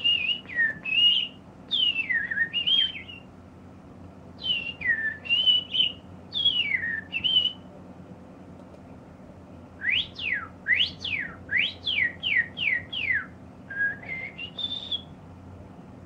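Clear whistling in short phrases of sliding notes, several of them dropping steeply. About ten seconds in comes a quick run of about eight sharp up-and-down swoops, then two last notes.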